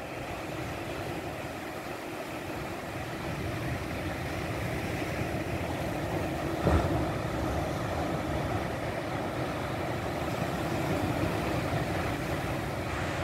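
Sea surf washing on the shore, a steady rushing sound that swells a little at times, with a brief bump just under seven seconds in.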